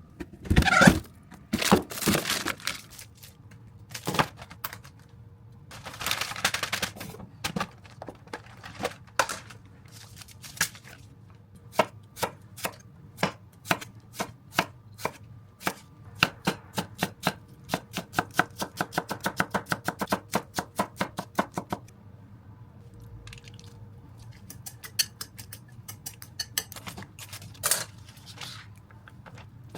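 Knife chopping food on a cutting board: a long steady run of strokes, about two or three a second, through the middle, with a few louder scraping or handling sounds near the start.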